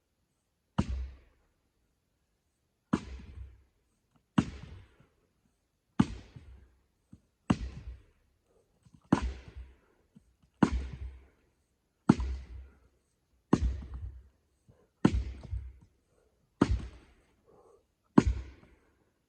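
Tamarack firewood being split by hand with heavy, regular blows, about one every second and a half and a dozen in all. Each blow is a sharp crack with a low thud that dies away quickly.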